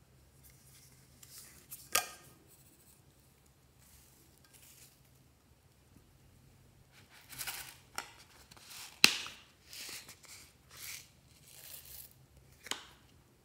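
A small plastic toy container clicks open, then its sequins and flakes are shaken out and rattle and patter onto slime in a glass tray, with sharp plastic clicks among the rustling. The loudest click comes about two seconds in and another about nine seconds in; the shaking runs in short bursts through the second half.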